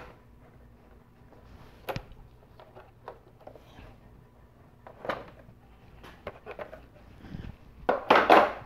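Hard plastic air intake duct being unclipped and lifted out of a Nissan Versa's engine bay: a few scattered clicks and knocks of plastic, with the loudest clatter near the end.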